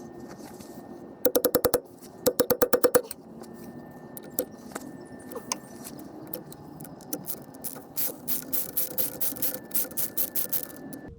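Hand tools working metal hydraulic hose fittings: two quick runs of rapid metallic clicks, then a slower, looser series of clicks and taps near the end.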